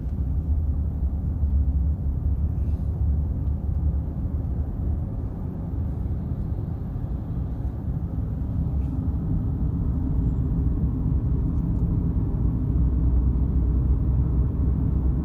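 Car interior road noise: steady low rumble of tyres and engine while driving.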